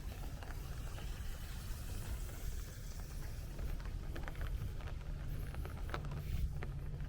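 Light rain pattering and dripping on an open umbrella, scattered drops ticking on it, over a steady low rumble.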